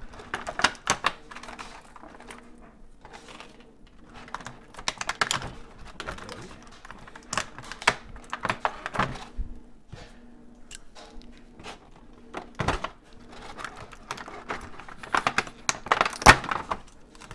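Hard plastic parts clicking and rattling against a clear plastic blister tray as they are lifted out of it, in several bursts of clicks with pauses between, the loudest near the end.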